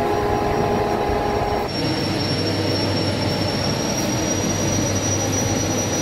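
Steady machinery noise inside a hydropower station: a hum with several held tones, which changes abruptly about two seconds in to a wide rushing noise with a thin high-pitched whine.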